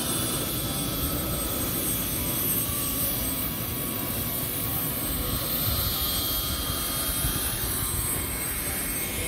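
Bell 206 JetRanger helicopter's turbine engine running on the landing pad: a steady rushing noise with a thin high whine.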